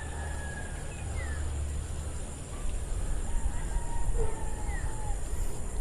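Outdoor ambience: a steady low rumble, with a few faint, short bird calls.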